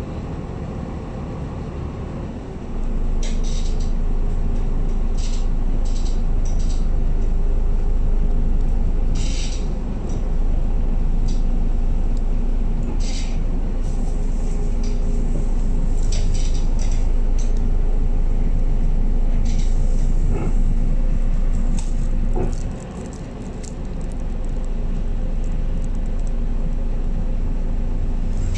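Inside a MAN A22 city bus under way: steady engine and road rumble with a faint whine, which grows louder about three seconds in, drops briefly about 23 seconds in, then builds again. Scattered short clicks throughout.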